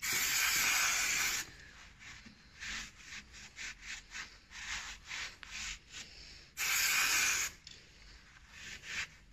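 Aerosol brake cleaner sprayed in a hiss of about a second and a half at a rear drum brake's back plate, then a tissue or rag scrubbed against it in quick, uneven strokes to wipe off stubborn brake fluid. A second short burst of spray comes about two-thirds of the way through, followed by more wiping.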